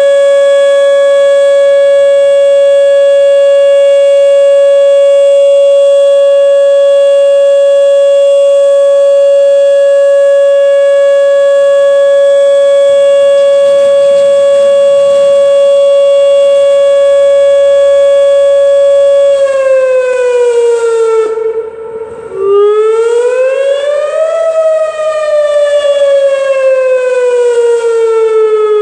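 Outdoor tornado warning siren, sounded as a test, holding a steady alert tone for about nineteen seconds. Its pitch then falls, cuts out for a moment, and it begins the slow rising and falling wail.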